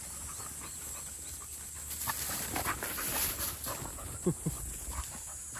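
Two Labrador puppies play-fighting in grass: scuffling and rustling, with two short low dog vocalizations falling in pitch about four seconds in.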